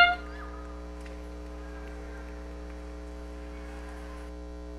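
Steady electrical mains hum: a buzz of evenly spaced tones that holds unchanged, with no other sound over it.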